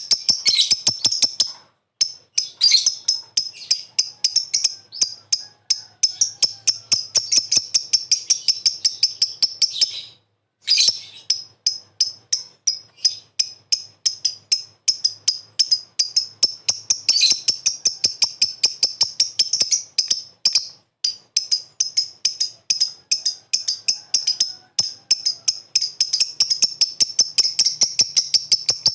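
A lovebird's long 'ngekek' chatter: a rapid run of short, high chirps repeated several times a second, breaking off briefly about ten seconds in before going on.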